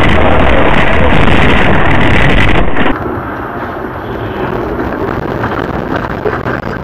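Road and engine noise recorded by a dashcam inside a moving car: a loud, distorted roar that drops suddenly to a quieter steady rumble about three seconds in.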